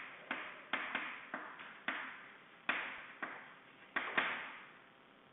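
Chalk writing on a chalkboard: about a dozen quick, irregular taps and short scrapes as the chalk strikes and drags across the board, stopping a little before the end.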